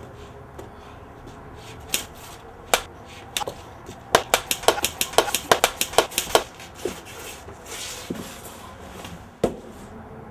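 A staged fist fight: sharp punch impacts, a few single hits about two seconds in, then a quick flurry of about a dozen blows at roughly five a second, and one last hit near the end.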